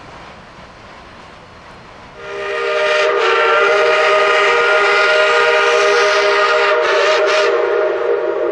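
Whistle of the 1905 Shay No. 5 geared steam locomotive blowing one long, steady chord of several tones. It starts about two seconds in, after a low running sound from the locomotive, and begins to fade near the end.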